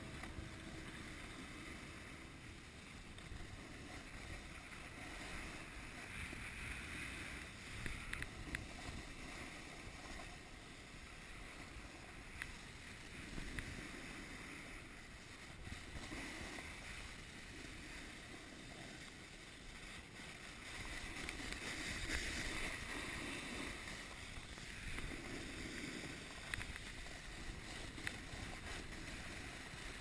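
Wind noise on a handheld camera's microphone, with skis or a snowboard scraping over groomed snow during a descent. The scrape swells and eases every few seconds.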